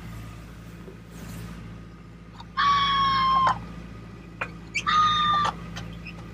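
Sailboat's engine droning steadily under way, with two high, held cries standing out over it, the first about two and a half seconds in and a shorter one about five seconds in.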